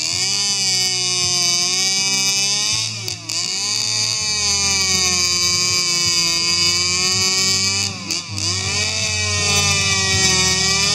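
Husqvarna two-stroke chainsaw fitted with a stainless-steel aftermarket chamber muffler, running hard as its throttle is worked. Its pitch rises and falls, dropping sharply twice, about three seconds in and again near eight seconds, before it picks back up.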